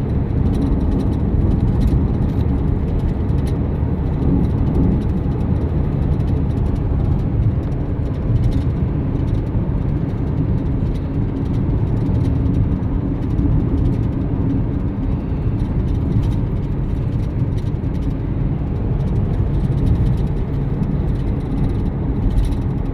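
Steady low rumble of a car driving, engine and tyre noise heard from inside the cabin, with a faint steady hum.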